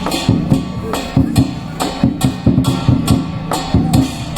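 Lion dance percussion: a big drum beaten in a fast steady rhythm with cymbals clashing on the beat.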